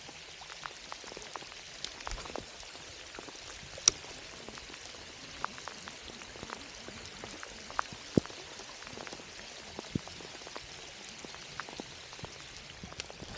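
Steady rain falling, an even hiss with single drops striking close by as sharp ticks scattered throughout.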